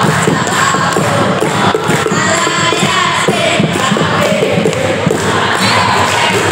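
A group of boys singing a nasyid together into microphones, with hand clapping keeping the beat.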